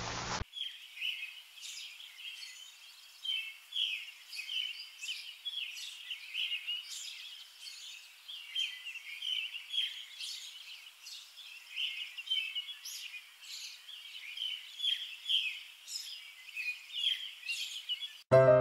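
Small birds chirping, a steady stream of short, high-pitched overlapping calls with some quick upward sweeps. Piano music cuts in right at the end.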